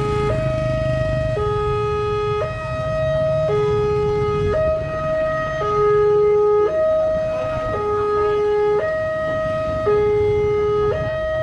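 Railway level-crossing warning alarm sounding a repeating two-tone hi-lo pattern, each tone held about a second, over a steady higher tone, warning of an approaching train. A low rumble runs underneath.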